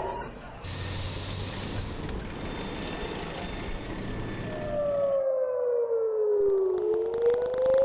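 Civil-defence air-raid siren wailing, its single tone sliding slowly down and then back up, entering about four and a half seconds in. It follows several seconds of steady noisy background hiss.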